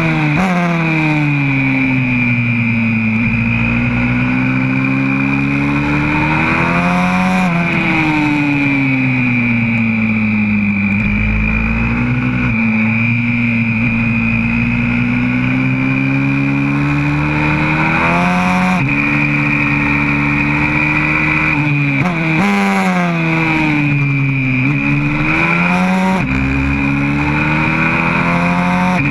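YCF 125cc four-stroke single-cylinder pit bike engine heard from on board at full racing pace, its pitch rising under throttle and falling off into corners. Twice, about a quarter and two thirds of the way through, a long climb in revs cuts off sharply, and near the end there are several quick drops and rises.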